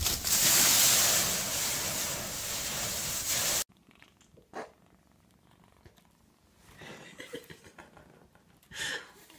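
Dry leaves in a leaf pile rustling and crunching loudly for about three and a half seconds, then cutting off abruptly. After that it is almost quiet, with a few faint, brief soft sounds.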